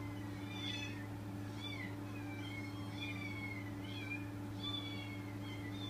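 Recorded cat meows played back through a speaker: a string of short, thin, falling meows about once a second, over a steady low electrical hum.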